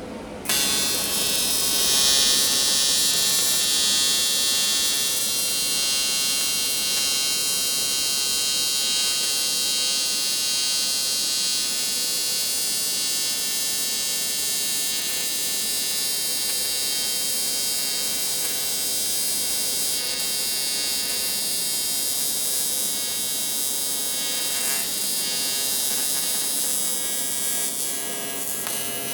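AC TIG welding arc on aluminum buzzing steadily as a patch is welded on, starting abruptly about half a second in and dipping slightly near the end.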